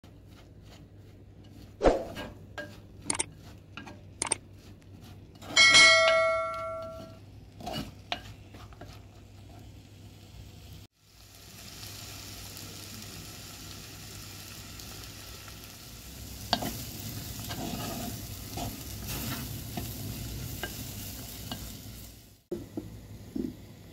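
Broad beans with garlic and dill frying in a glazed clay gamaj pot: a steady sizzle while a wooden spoon stirs and scrapes through them. In the first half come a few sharp knocks and one loud, ringing clink about six seconds in.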